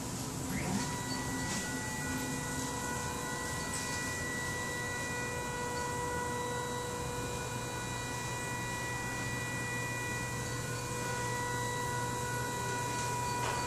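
Steady electronic whine and hum from dental imaging equipment, holding several fixed pitches at an even level, with a few faint knocks of handling.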